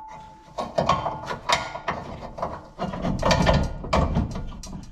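Hand ratchet clicking in quick, uneven strokes as a bolt on the van's front suspension is run in and tightened.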